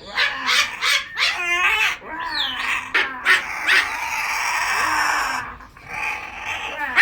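Cockatoo calls: a string of short, harsh squawks, one of them rapidly pulsing, then a single long harsh screech of about two seconds starting about three seconds in, and more short squawks near the end.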